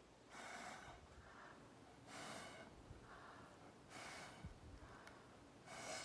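Four short puffs of air blown through a thick plastic drinking straw, about one every one and a half to two seconds, to spread wet watercolour paint across paper. Faint breaths are drawn in between the puffs.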